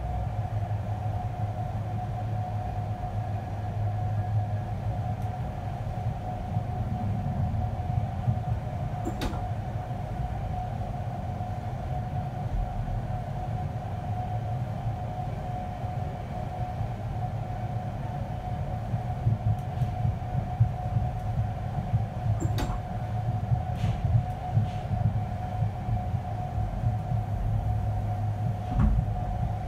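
Inside a passenger coach of an express train running at speed: steady rumble of wheels on rail with a constant mid-pitched hum. A few sharp knocks come through, one about a third of the way in and several in the last third.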